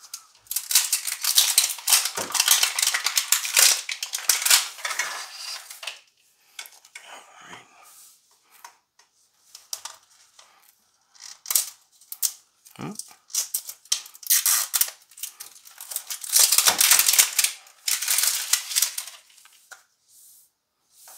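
Plastic wrap being peeled off a Mini Brands capsule ball and crumpled, crackling in two long spells: from about half a second in to about 6 s, and again about three quarters of the way through. Lighter clicks of plastic being handled come in between.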